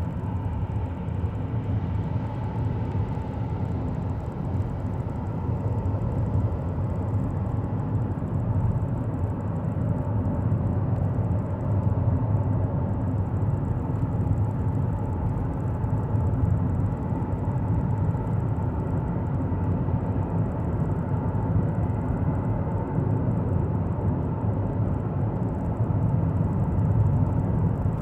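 Steady low rumble of a car's tyre and engine noise, heard from inside the cabin while it drives through a highway tunnel.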